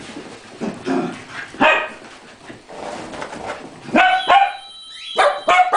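Poodles barking in play: sharp, high yaps, one about a second and a half in and a quick run of them in the last two seconds.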